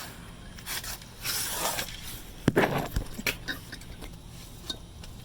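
Handling noises: rustling and scraping, with a sharp click about two and a half seconds in and a few lighter ticks after it.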